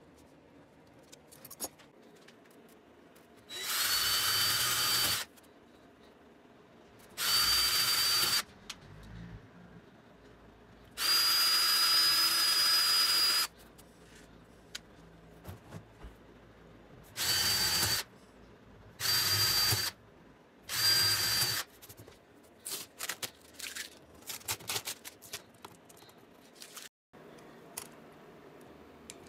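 Electric drill run in six short bursts, the third the longest, each with a steady high whine, drilling holes through a clear plastic sheet laid on a wooden plank. Small clicks and handling noises follow as the parts are fitted.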